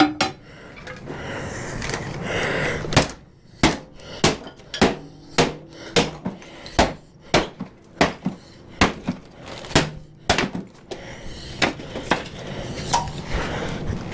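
A run of sharp wooden knocks, about two a second, as the planer's wooden shipping crate is knocked apart.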